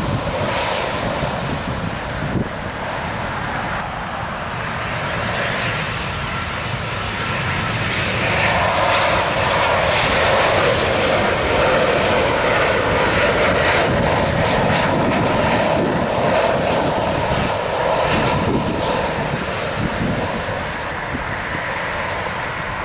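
Airliner's engines as it passes low near the airport: a steady roar that swells about eight seconds in and eases off toward the end.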